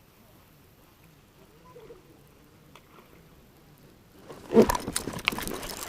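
Faint background at first, then about four seconds in a sudden loud burst of splashing with knocks and rattles, typical of a bass striking a topwater frog lure and thrashing on the line.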